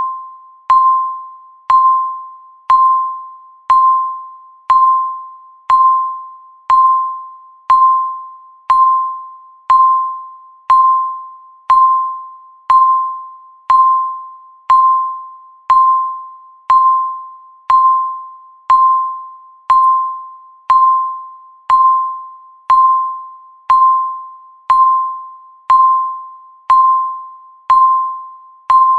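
Countdown timer sound effect: a single ringing, bell-like tone sounding once every second, each stroke sharp at the start and fading away before the next.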